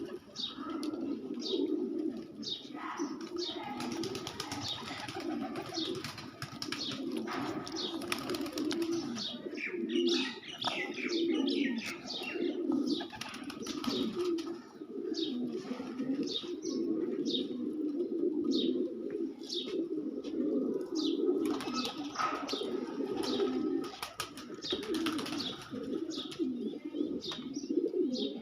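A group of pet birds calling: a steady low cooing runs throughout, with many short high chirps over it.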